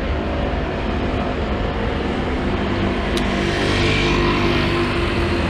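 Road traffic: a motor vehicle passes along the street over a steady low rumble, its sound swelling about three to four seconds in and then easing.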